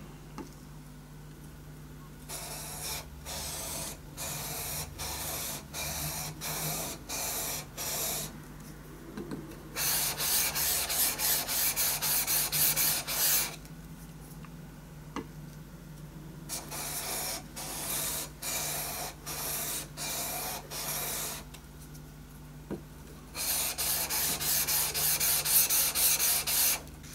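A steel edge tool's bevel rubbed back and forth by hand on the coarse (about 1000 grit) side of a wet natural water stone: rhythmic gritty scraping strokes, about two a second, in runs broken by two short pauses, with quicker strokes near the end.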